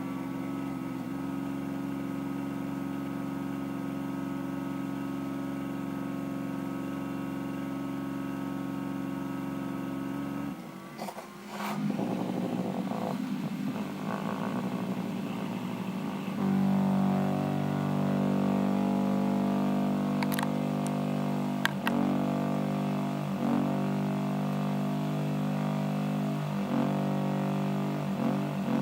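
Small PC power-supply cooling fan running with a steady hum of several tones. Its sound changes abruptly about ten seconds in, with a brief drop and a few clicks, then settles louder from about sixteen seconds in, dipping briefly a few times.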